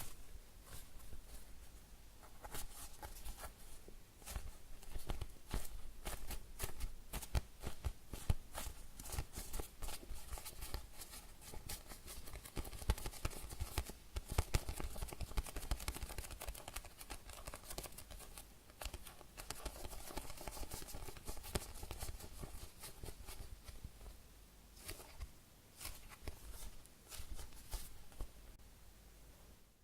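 Fingers squeezing, pressing and rubbing a very slow-rising foam squishy toy shaped like a cheesecake, close to the microphone, making a dense run of soft crackles and taps.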